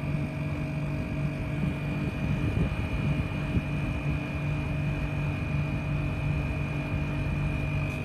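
Mitsubishi split-type air conditioner outdoor unit running: a steady hum and airflow noise with a constant high-pitched whine on top.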